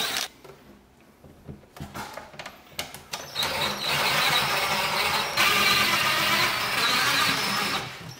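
Cordless drill/driver driving the mounting screws through an EV charger's back housing into the wall, running steadily in two back-to-back runs from about three seconds in. A few light clicks of handling come before it.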